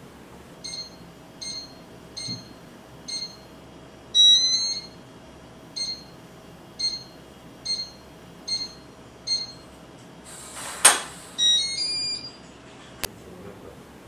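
Loghome LH300S digital door lock keypad beeping at each button press as a code is entered: four beeps, a short chime of several notes, then five more beeps. About ten seconds in, the lock's motor makes a brief whirr that ends in a sharp clunk as it unlocks. Another short chime follows, and a single click comes near the end.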